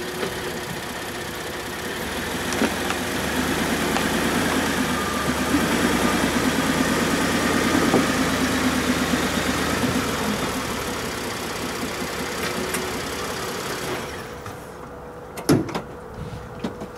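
Ford F-150 EcoBoost pickup's engine running at low speed as the truck creeps up onto plastic car ramps, growing louder as it nears and then fading and stopping about fourteen seconds in. A few sharp knocks follow near the end.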